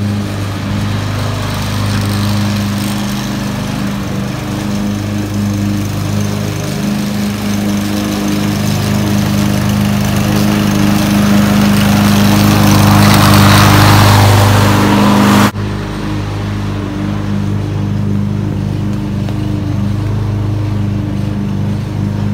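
Small engine of a yard-cleaning tool running steadily at a constant high speed. A hissing rush swells and becomes loudest about two-thirds through, then cuts off abruptly, and the steady engine tone carries on.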